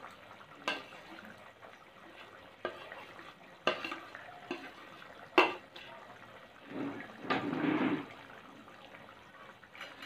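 Boiled egg pieces sliding into a simmering tomato-masala gravy in a pan, with a few sharp knocks of utensils against the pan. About two-thirds of the way through comes a longer wet, sloshing stir of the thick gravy.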